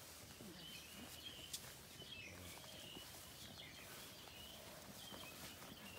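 Faint jungle ambience: quiet bird chirps over a low background hiss, with one sharp click about one and a half seconds in.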